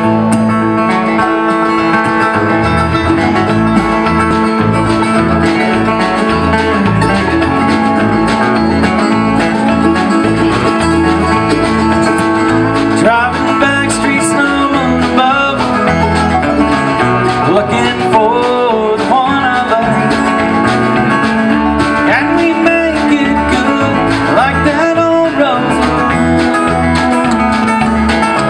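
A bluegrass band playing live, with banjo and acoustic guitars.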